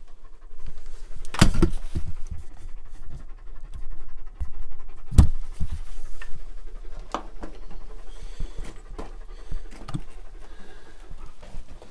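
A dog panting at close range, with a few sharp knocks on rock. The loudest knocks come about a second and a half in and about five seconds in.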